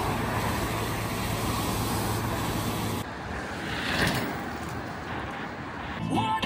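Street traffic: a steady vehicle engine hum that breaks off abruptly about three seconds in, then a vehicle passing close, swelling and fading about four seconds in. Music begins near the end.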